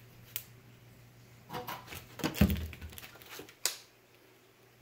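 Handling noise of welding leads and a clamp meter being moved about: light rustles and knocks, with a sharp click about three and a half seconds in. A faint steady hum runs underneath.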